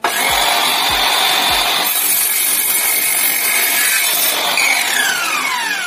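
INGCO CMS2001 cordless miter saw starting up with a sudden motor whine and cutting through a piece of light wood. About four and a half seconds in, the trigger is let go and the whine falls in pitch as the blade spins down.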